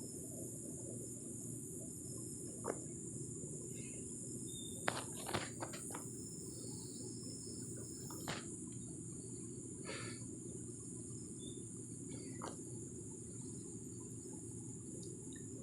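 Night insects, crickets, chirring in a steady high-pitched chorus over a low, even hiss, with a few brief clicks scattered through, several of them about five to six seconds in.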